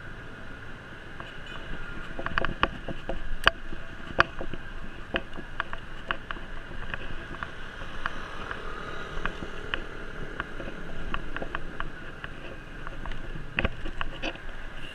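A bicycle being ridden along a paved road: a steady ride hum with irregular sharp clicks and rattles, bunched about two to four seconds in and again near the end.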